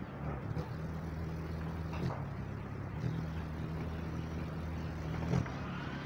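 Steady low hum of an engine running, with a faint click about two seconds in and another near the end.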